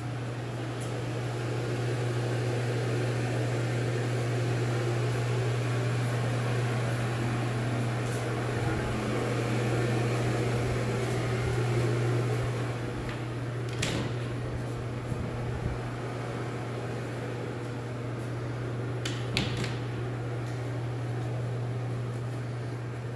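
Steady low hum with air noise from a running ventilation or air-conditioning fan, with a few light clicks about two-thirds of the way in.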